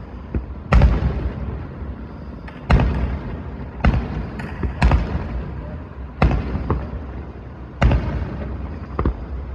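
Fireworks going off: about seven sharp bangs, roughly one every second or so, each trailing off briefly, over a steady low background noise.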